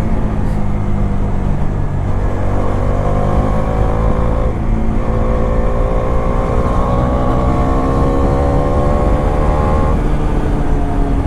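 Bajaj Dominar 400's single-cylinder engine pulling hard through the gears. Its pitch climbs steadily and drops back at each upshift, about two, four and a half and ten seconds in, over a heavy low rumble.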